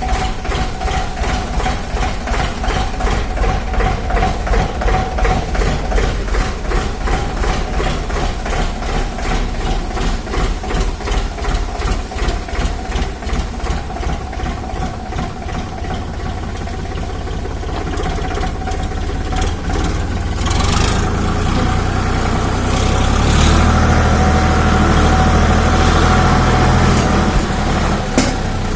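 Engine running with a rapid, even chugging rhythm and a steady tone, growing louder and heavier about twenty seconds in.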